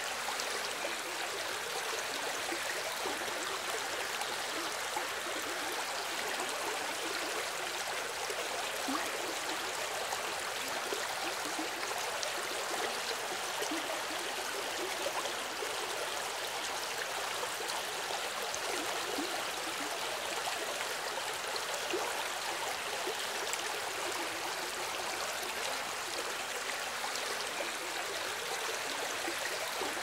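Small river running over rocks: a steady, even rush of water, mostly high and hissy with little deep rumble.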